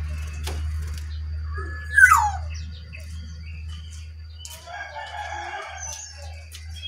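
Birds calling: a loud, quick downward-sliding call about two seconds in, then a rougher, layered call around five seconds, over a steady low hum.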